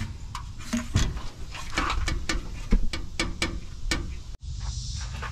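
Scattered clicks and light knocks of a radiator and its rubber hose being handled and fitted into a truck's engine bay. The sounds break off abruptly a little over four seconds in.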